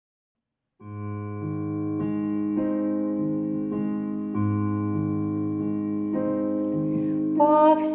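Keyboard playing an introduction of held chords that change about once a second. It starts after a short silence, and voices begin to come in near the end.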